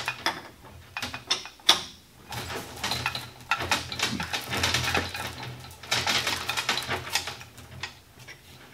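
Hand tools working on a large lathe's chuck mounting. A few separate sharp metallic clicks come first, then a few seconds of rapid metal clicking and clattering from a wrench at the spindle nose, with a low hum underneath.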